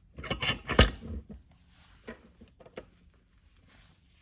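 A quick cluster of knocks and a short scrape as the chainsaw and its file sharpener are handled, loudest about a second in, then a few faint clicks.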